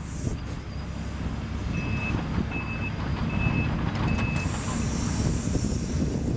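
Case CX130D long-reach excavator's diesel engine running steadily while it works its boom and bucket. A warning alarm beeps four times, evenly spaced, about two seconds in, and a hiss rises over the engine in the last two seconds.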